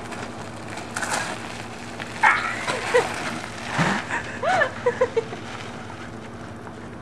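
Bicycle tyres rolling and grinding over loose gravel, with a few short vocal cries from a person about two and four and a half seconds in.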